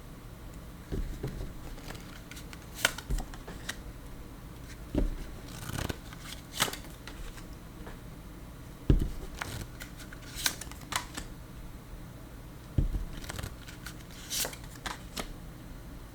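Tarot cards being shuffled and handled: irregular flicks and snaps of the cards, with a few soft thumps, the strongest about nine seconds in.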